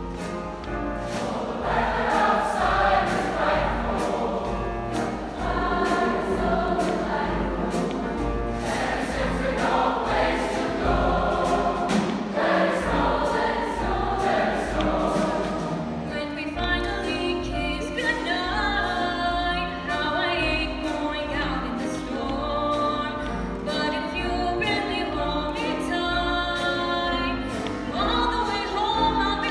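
Large choir singing with piano accompaniment, heard from the audience seats of an auditorium. About halfway through, the singing turns higher and brighter.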